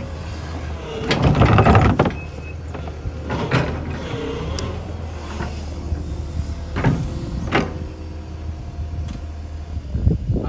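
Sumitomo SH120 A3 crawler excavator's diesel engine running with a steady low hum, while the machine clanks and knocks several times as it works its way down into a field.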